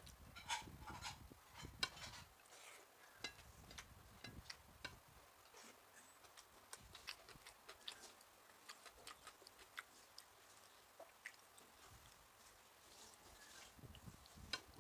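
Quiet eating sounds: chewing and mouth smacks with scattered small clicks as food is picked up and eaten by hand, busiest in the first couple of seconds.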